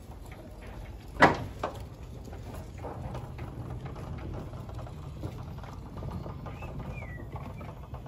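A sharp knock about a second in and a lighter one just after, from work around a band sawmill carriage holding a large teak stump, with small clunks over a low steady rumble. A small bird chirps a couple of times near the end.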